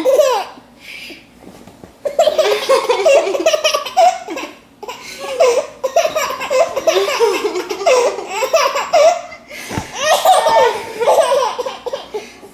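A baby laughing hard in long bouts of giggling belly laughs, with a few short breaks between the bouts.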